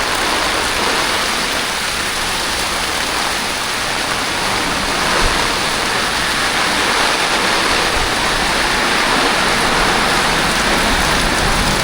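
Heavy rain falling in a steady, even hiss, with runoff water running.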